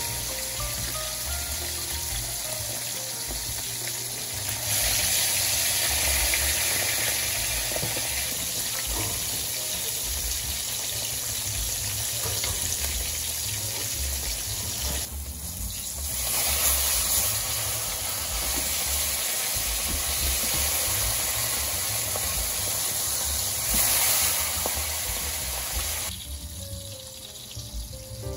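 Hot oil sizzling around Atlantic mackerel fillets shallow-frying in a non-stick pan, a steady hiss that grows louder about five seconds in and drops away near the end.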